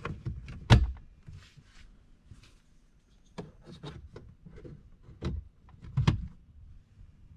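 A few sharp knocks and clicks from hands handling hard objects, such as a programming tool being plugged into a car's OBD port. The loudest knocks come just under a second in and again about six seconds in, with softer clicks between.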